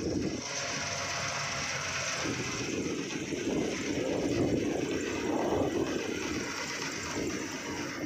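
Self-propelled combine harvester running steadily as it cuts and threshes wheat, its engine and threshing machinery making a continuous mechanical drone.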